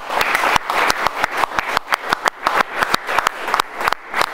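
A small group of people applauding, with the individual hand claps clearly separate; the clapping thins out near the end.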